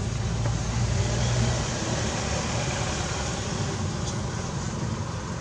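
Steady outdoor background noise: a low rumble with a hiss above it and no distinct event.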